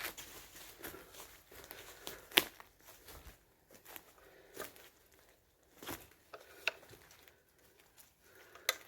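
Irregular crunching and rustling footsteps through dry debris and undergrowth, with one sharp crack about two and a half seconds in.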